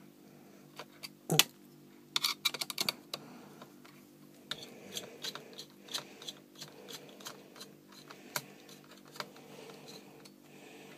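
Screwdriver clicking and tapping on the captive, spring-loaded screws of a laptop's CPU heatsink as they are undone. There is a sharp click a little over a second in, a quick run of clicks around two to three seconds, then scattered light ticks over a faint steady hum.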